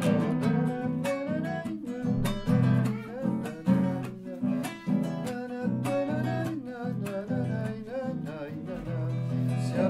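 Background music: acoustic guitar strumming and plucking an instrumental passage of a Spanish-language folk song, a chacarera.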